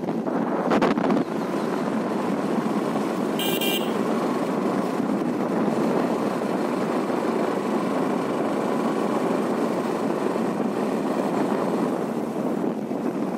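Motorcycle riding along a road: steady engine, tyre and wind noise. A vehicle horn gives one short beep about three and a half seconds in.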